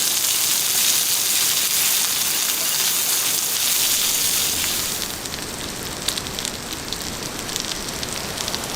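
Rain falling steadily in a dense hiss; about five seconds in it turns quieter and duller, with separate drops ticking now and then.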